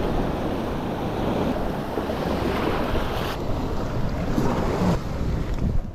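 Sea surf washing in, with wind buffeting the microphone.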